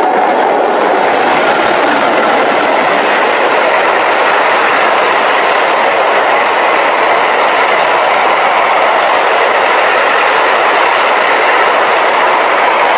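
A freight train of tank wagons passing close by at speed: a loud, steady rush of wheels on rail.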